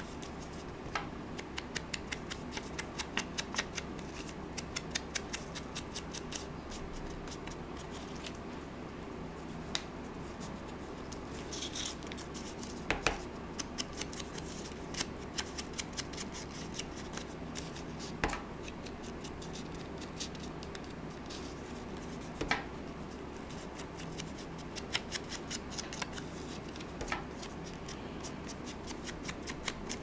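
Foam ink blending tool dabbed in quick taps around the edges of paper cut-outs, a long run of small dry clicks, several a second, with a few louder knocks now and then, over a low steady hum.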